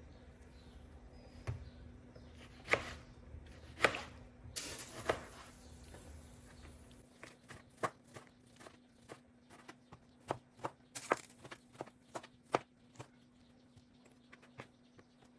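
Irregular light taps and knocks of things being handled: a few louder knocks and a brief hiss in the first five seconds, then a quicker run of small clicks. A faint steady hum lies underneath.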